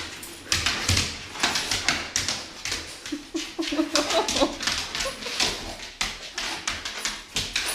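An excited dog whining, with a brief wavering whine in the middle, amid repeated short rustling and scuffling sounds.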